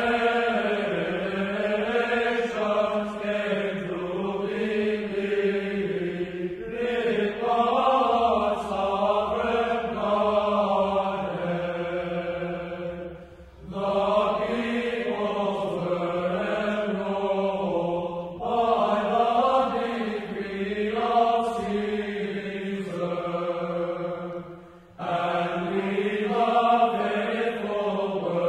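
Sung church chant as a background soundtrack, in phrases of several seconds with brief pauses between them.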